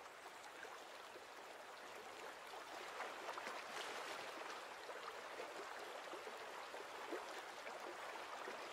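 Shallow river running over gravel, a steady low rush of water, with small splashes as a brown bear wades through it from about three seconds in.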